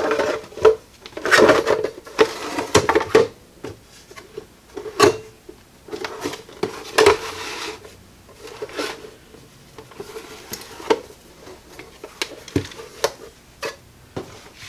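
Radio chassis being handled and fitted back into its cabinet: a series of irregular knocks, clunks and scrapes of metal against the case.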